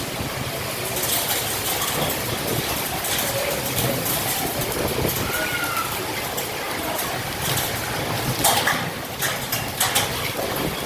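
Rain falling steadily, with frequent sharp taps of individual drops striking a hard surface.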